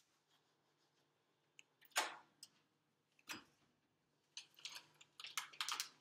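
Wall oven being opened and a baking sheet of cookies pulled off the rack: a sharp knock about two seconds in, another a second later, then a quick run of small metal clatters and scrapes near the end.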